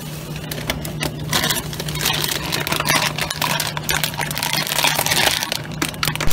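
Plastic zip-top storage bag crinkling and rustling as it is handled, in dense crackles, over a steady low hum.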